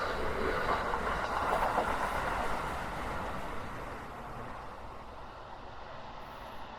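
Keikyu Main Line train running past, its rumble fading away as it leaves.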